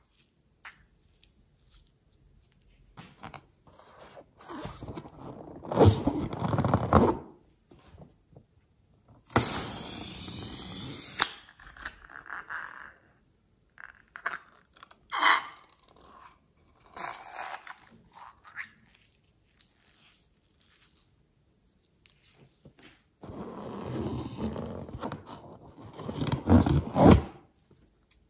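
Slime squeezed out of balloons into a bowl of slime: on and off wet squelching and crackling, loudest in two long stretches, with a steady hiss lasting about two seconds.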